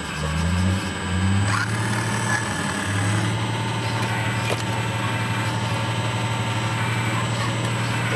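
Scale RC hydraulic excavator working, with a low mechanical drone. The drone rises in pitch a few times in the first second and a half as the arm moves, then settles into a steady hum.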